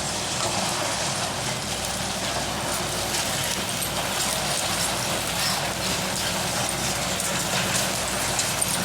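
Diesel earthmoving machinery, a 360 excavator working with a soil screener, running steadily. Its low engine hum sits under a continuous scattered crackle and rattle, the sound of soil and stones being handled.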